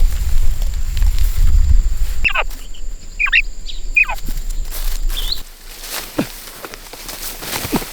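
A small bird gives three sharp calls about a second apart, each sweeping quickly downward, then one short chirp. Underneath are a low rumble and rustling footsteps; the rumble stops abruptly about five seconds in.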